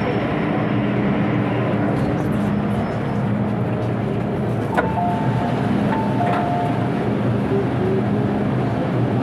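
Cabin sound of an MTR Tsuen Wan line M-Train under way, pulling out of a station: a steady rumble of wheels on rail with a low, even hum from the drive. About five seconds in, and again a second later, a click comes with a short two-note beep.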